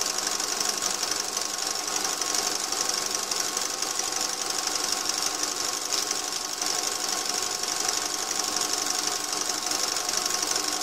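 Metal lathe running steadily in reverse, spinning a rebuilt Lucas K2F twin magneto on a test rig, with a fast, even ticking as the magneto fires two test spark plugs.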